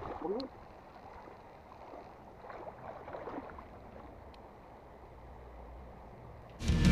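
Faint flowing river water with a few light ticks. Loud rock music with drums cuts in near the end.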